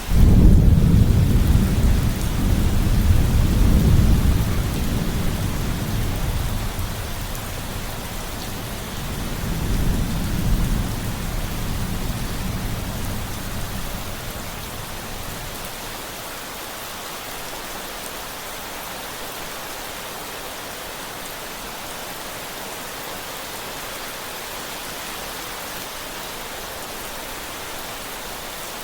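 Rolling thunder over steady rain. A long low rumble opens, a second swell comes about ten seconds in, and it dies away, leaving only the even hiss of rain.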